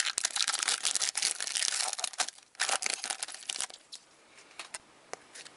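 A hockey card pack wrapper being torn open and crinkled, a dense crackling for about two seconds that breaks into scattered crinkles. Quieter rustling with a few faint ticks follows as the cards are handled.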